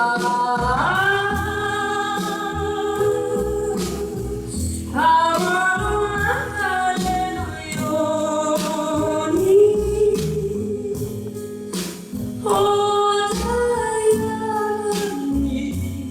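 A young girl's solo voice singing a slow ballad in long held notes over instrumental accompaniment, in three phrases that begin about half a second, five seconds and twelve and a half seconds in.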